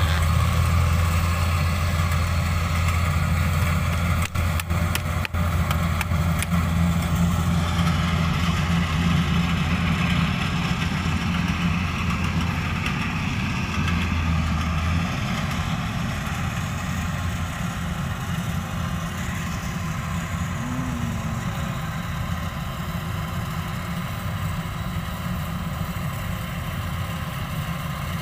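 Kubota combine rice harvester's diesel engine running steadily as the machine cuts rice, the sound slowly fading in the second half as it moves away.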